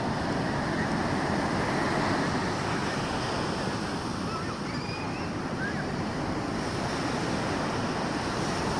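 Ocean surf washing steadily onto a beach, with wind on the microphone.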